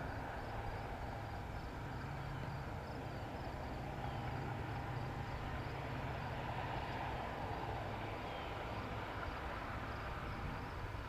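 Corn combine harvester running in the field, heard as a steady low machinery hum, with crickets chirping in an even rhythm about twice a second.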